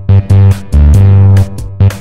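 Background music with a loud, pulsing bass line and a steady beat.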